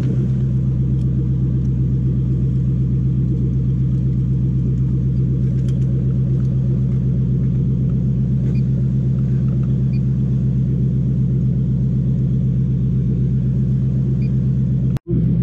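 Toyota 1UZ-FE VVTi 4.0-litre V8 idling steadily at about 750 rpm, with a momentary break in the sound near the end.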